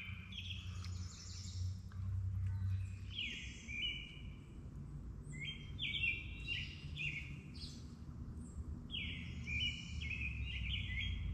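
Songbirds singing, short high phrases of quick stepped notes coming in bursts every few seconds, with some overlapping, over a steady low hum.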